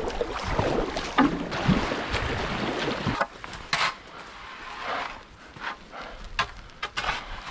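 Kayak paddle strokes splashing in shallow water. About three seconds in the sound cuts to quieter, irregular crunching steps on loose gravel and dirt as someone climbs a steep bank.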